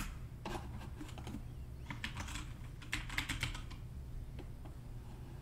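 Typing on a computer keyboard: irregular clusters of key clicks, over a faint steady low hum.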